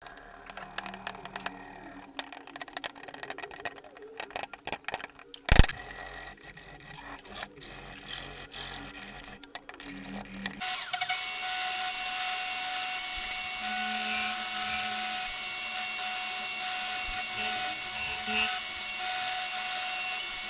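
Irregular scraping and tapping of a hand tool on a plywood jig, with one sharp knock about five seconds in. Then, about halfway, an angle grinder with a sanding disc starts and runs steadily, sanding a wooden piece held against it.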